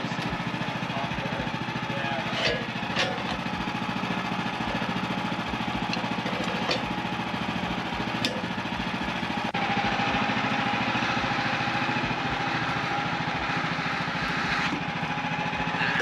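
Woodland Mills HM130 Max bandsaw mill running steadily, with a few sharp knocks in the first half. About halfway through it gets louder and a steady higher whine joins in as the band blade cuts into the log.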